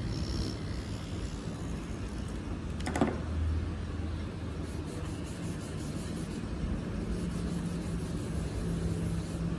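A steady low mechanical hum, with a single sharp click about three seconds in.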